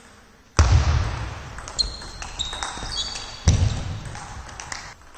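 Table tennis rally in a sports hall: sharp clicks of the ball off bats and table, and short high squeaks of shoes on the hall floor. Two heavy thuds, the loudest sounds, come about three seconds apart.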